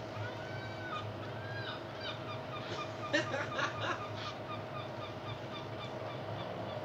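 Steady low hum of an old 50 V mains transformer driving heavy AC current into a 12 V sealed lead-acid battery. Bird calls sound over it, with short repeated chirps about four a second and a louder burst of calls about three seconds in.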